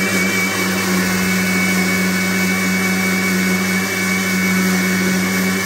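Electric mixer grinder running steadily at full speed with a stainless steel jar, its lid held down by hand: a constant motor hum with a steady high whine over it.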